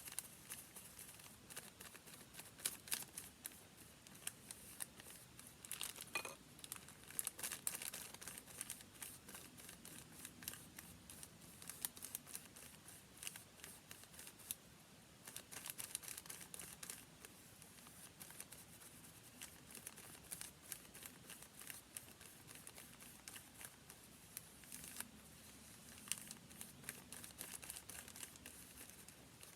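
Paper being handled close up: faint, irregular crinkling and rustling with scattered small ticks and scrapes.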